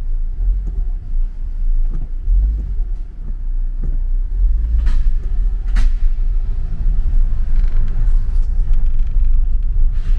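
Low, steady rumble of a car driving slowly, heard from inside its cabin, with two sharp knocks about halfway through.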